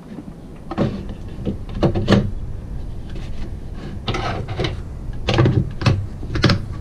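Stainless steel strainer basket knocking and rattling as it is set into a plastic food container, then the plastic lid pressed down onto the container: several knocks and clatters over a low steady hum.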